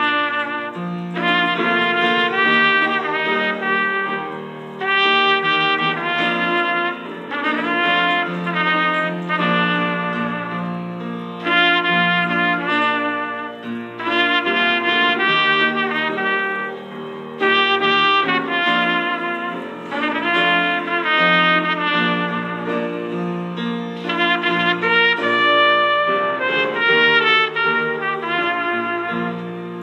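A trumpet playing a slow melody in phrases, with piano accompaniment underneath.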